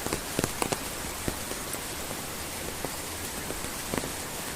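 Steady rain falling, with a constant hiss and irregular sharp drips and drops striking close by.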